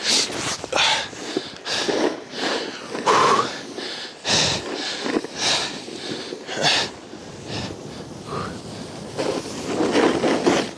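Snowboard sliding and scraping over rough, ungroomed snow, in irregular bursts of harsh hissing.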